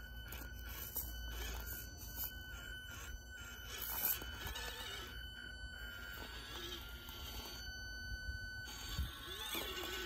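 Axial SCX24 Deadbolt micro RC crawler's small brushed electric motor and gear transmission whining steadily at a high pitch as it crawls over rocks, the whine wavering a little and fading near the end. Tyres and chassis click and scrape against the stone.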